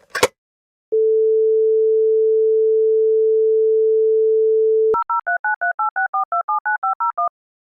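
Telephone handset picked up with a brief clatter, then the French landline dial tone: one steady tone, pitched at 440 Hz, for about four seconds. It cuts off and a rapid string of DTMF touch-tone beeps dials an international number to an Italian mobile.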